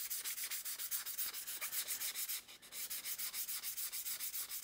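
800-grit sandpaper rubbed over primed vent bezels in quick, even back-and-forth strokes, about eight a second, with a brief pause about halfway through. The rough primer is being knocked down smooth before the colour coat.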